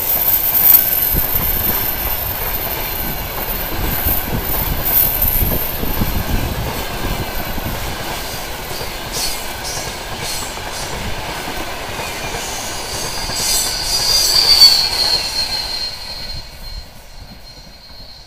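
Passenger coaches of an express train passing close at speed, their wheels rumbling and clattering on the rails with a high hiss and squeal. Near the end a high steady ringing tone comes in, and the noise fades quickly as the train draws away.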